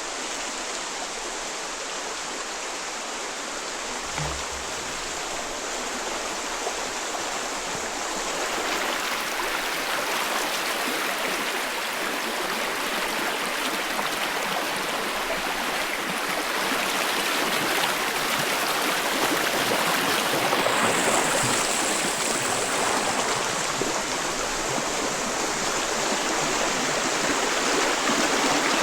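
Mountain creek rushing over rocks, a steady, even rush of water that grows a little louder about eight seconds in.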